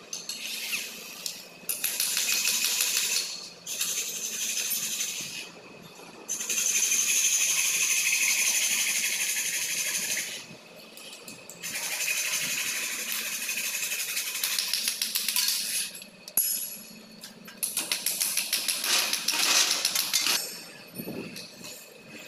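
Handheld electric drill boring into aluminium frame sections, run in about six bursts of one to four seconds with short pauses between them.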